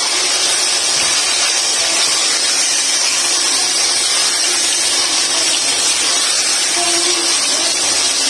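Chicken pieces and tomato slices sizzling steadily in hot oil in a pot as they are stirred with a spatula, at the stage of frying the tomatoes in with the browned chicken.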